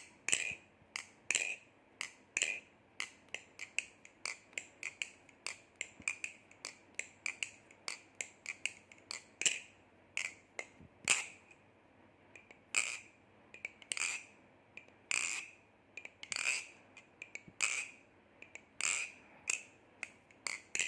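Baliplus Kraken 2.5 live-blade tanto balisong being flipped: a long run of sharp metallic clicks, about one to two a second, as the handles and blade snap open and closed. Each click rings briefly, and the clicks grow louder in the second half.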